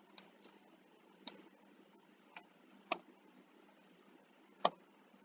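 A computer mouse clicking about six times, single clicks spaced irregularly, over faint steady hiss.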